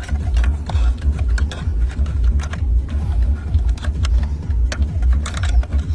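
Irregular small plastic clicks and knocks as a car air-conditioning vent grille is handled and pushed into its slot, over a steady low rumble.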